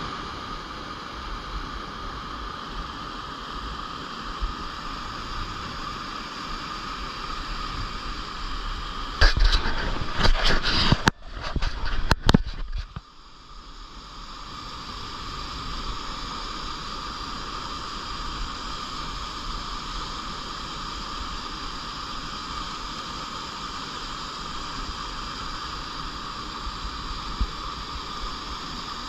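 Shallow clear stream flowing steadily, a continuous rushing of water. About a third of the way in there are a few seconds of loud, irregular knocks and rustling. After that the water sound drops away briefly and then swells back to its steady level.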